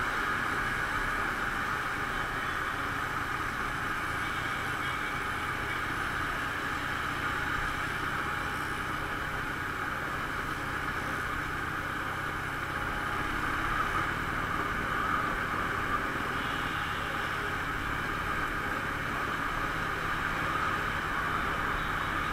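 Harley-Davidson Superlow's air-cooled V-twin engine running steadily while riding, under a constant rush of wind and road noise.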